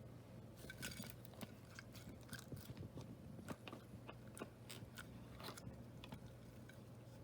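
Slime being squeezed and worked by hand, giving a faint, irregular scatter of small sticky clicks and pops, several a second.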